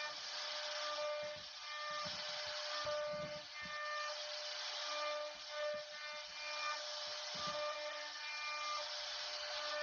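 CNC router cutting wood: a steady whine over a hiss of cutting, with higher tones switching on and off as the machine moves.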